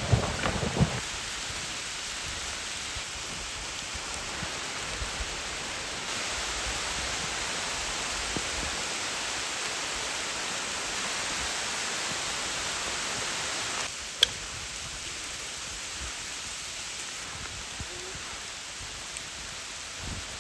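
Steady rain falling, an even hiss that grows louder about six seconds in and drops back about fourteen seconds in. A few knocks in the first second and one sharp click about fourteen seconds in.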